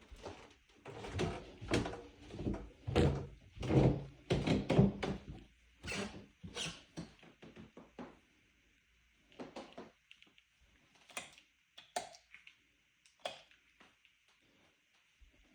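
A run of knocks and thuds in a small room, like doors and objects being handled, thinning out after about seven seconds to a few scattered clicks.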